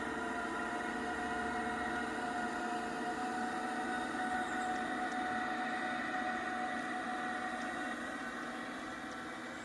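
Sound module of an Aristocraft G-scale Class 66 model locomotive playing a diesel engine sound through its small loudspeaker: a steady, thin buzzing drone with no deep bass. The pitch edges up slightly about halfway through, and it fades near the end.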